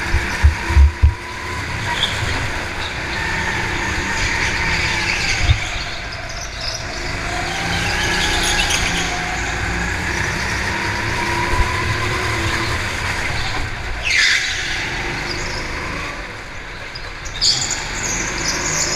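Go-kart engine running under the driver, its pitch rising and falling as it accelerates out of corners and drops off into them. A few thumps come near the start, and brief high tyre squeals are heard about three-quarters of the way through and near the end.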